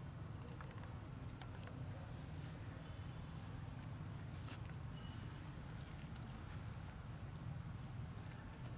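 Outdoor ambience: a steady high-pitched insect drone over a low rumble, with a few faint clicks.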